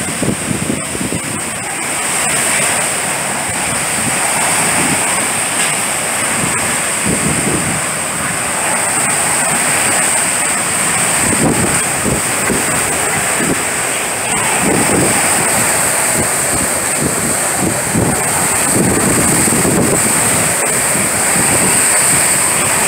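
Hurricane-force wind blowing hard with rain, a dense steady rush of noise. Gusts buffet the microphone in low rumbling surges every few seconds.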